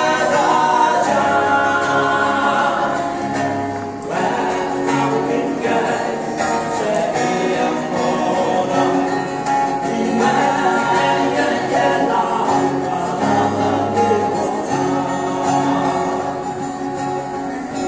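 Three men singing a Konyak-language gospel song together, accompanied by acoustic guitar.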